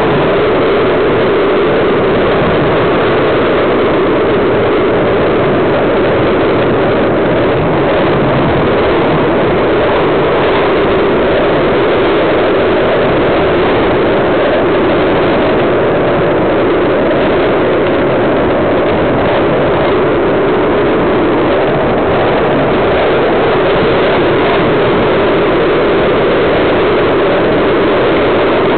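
Skateboard wheels rolling over coarse asphalt, a loud, steady rolling noise that goes on without a break.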